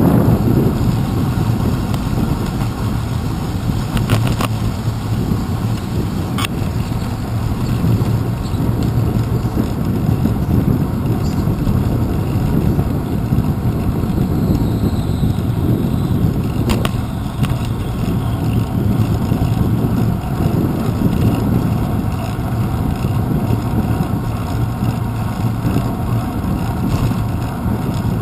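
Steady low rumble of a bicycle rolling along a paved path, picked up by a handlebar-mounted GoPro Hero 2, with a few short clicks about 4, 6 and 17 seconds in.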